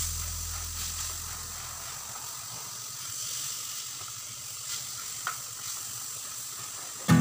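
Chicken breast sizzling as it fries in oil in a nonstick pan, with a few light scrapes from a plastic spatula pressing it. Strummed acoustic guitar music cuts in at the very end.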